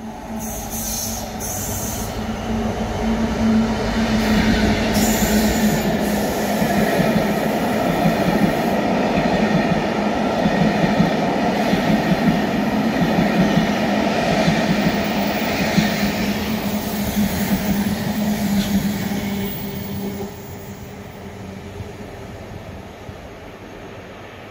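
The Belmond Royal Scotsman, a diesel-hauled train of heavy coaches, passes through the station. First comes the steady drone of the locomotive's engine, then the rumble and squeal of the coaches' wheels on the rails. The sound builds over the first few seconds, stays loud, and fades away near the end.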